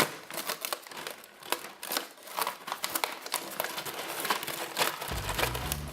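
Paper covering of a poke-box circle being poked through and torn open by hand, with dense irregular crinkling and crackling. Low background music comes in near the end.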